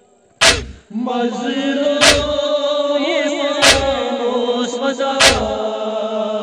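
Male voices chanting a noha (Shia lament) together, with a heavy chest-beating thump (matam) about every one and a half seconds, four times. The voices fall silent at the start and come back in about a second in, just after the first beat.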